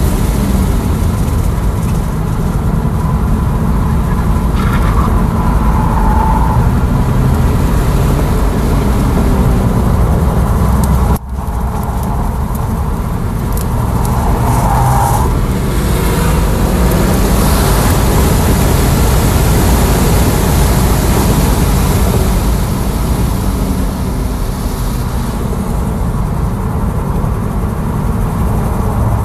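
Steady road and wind noise inside the cabin of an electric Tesla Model S Plaid at track speed, with no engine sound. The sound cuts out for an instant about eleven seconds in, and two short higher-pitched squeals come through around five and fifteen seconds in.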